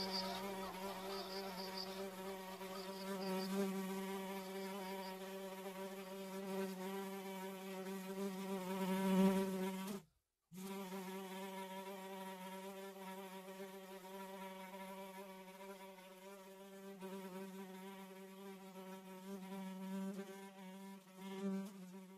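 A fly buzzing: a steady, low, even drone that wavers slightly in loudness, with a brief break about ten seconds in.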